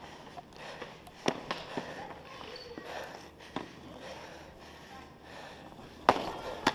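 Floor hockey sticks clacking against the ball and the wooden gym floor: a few separate sharp cracks, then a quick flurry of louder hits near the end as players battle for the ball.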